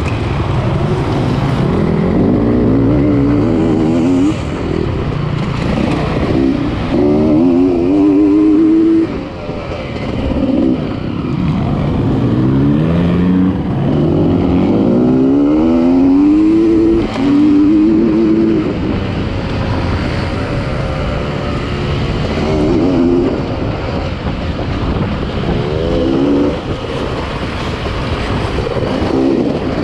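Off-road enduro motorcycle engines revving hard, their pitch climbing and dropping again and again under the throttle.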